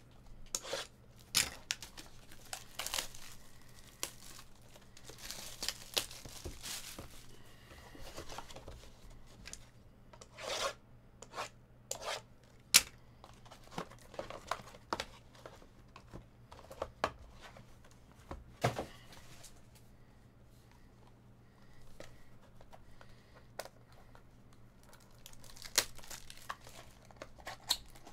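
Plastic shrink wrap being torn and crinkled off a sealed trading-card box, then cardboard mini-boxes handled, with scattered rustles, taps and sharp tearing sounds. Near the end a foil card pack is torn open.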